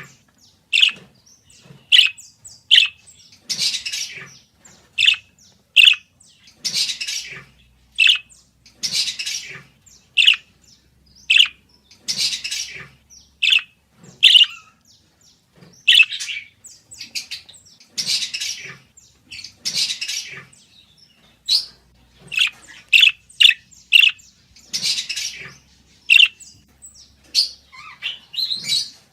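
A parakeet calling steadily: short high chirps mixed with longer, harsher chattering squawks, one or two a second with brief gaps between.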